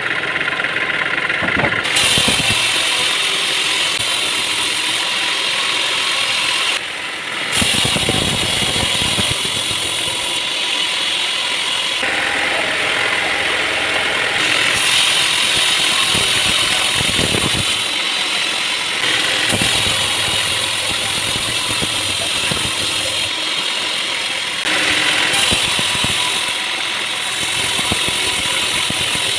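Sawmill machinery running and cutting wood, a loud steady mechanical noise whose character changes abruptly every few seconds.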